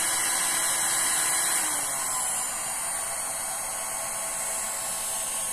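Handheld heat gun running steadily, its fan blowing hot air across wet resin to push the white wave edge. Its hum drops a little in pitch and level about two seconds in.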